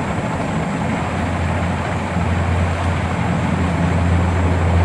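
Steady low hum over a background hiss, the hum growing stronger about two seconds in.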